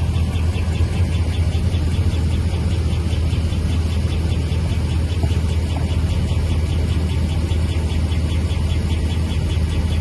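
Chrysler 5.7 HEMI V8 engine idling steadily with a fast, even ticking of about six ticks a second over its running.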